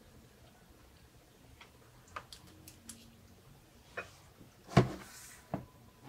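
A spoon tapping and scraping against a ceramic bowl in a few light clicks, with one sharper clink about five seconds in and another just after.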